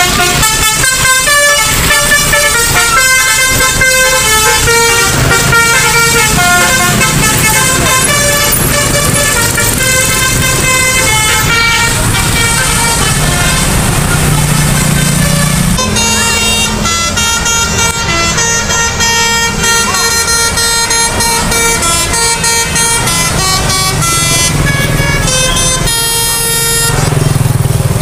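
Telolet bus horns, multi-tone air horns on tour buses, playing quick tunes of short stepped notes. A different tune starts about halfway through. Road traffic runs underneath.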